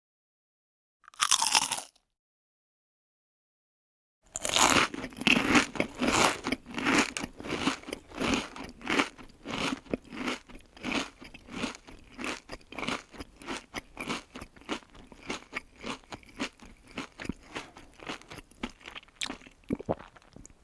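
A person biting once into crisp food about a second in, then after a short pause chewing it with steady crunching, about two to three chews a second, which cuts off abruptly near the end.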